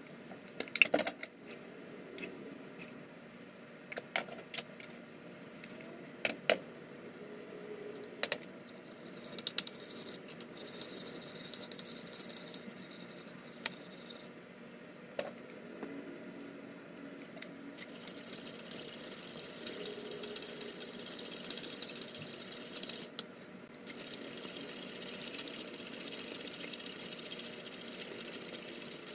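Metal spoon clinking and tapping against a ceramic bowl several times, loudest about a second in, as coffee powder, sugar and hot water go in. It then gives way to a steady scraping as a spoon and then a wire whisk stir and beat the thick coffee mixture in the bowl.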